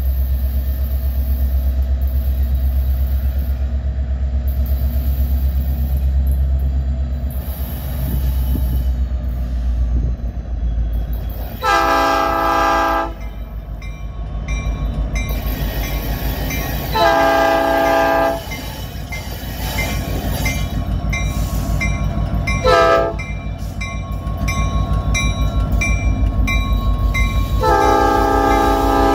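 Nathan Airchime P5 five-chime air horn on a CN SD75I diesel locomotive sounding the grade-crossing signal: long, long, short, then a final long blast starting near the end, over the rumble of the approaching diesel locomotives. A locomotive bell rings steadily between the later blasts. The horn's air pressure seems to fluctuate, which the videographer finds odd.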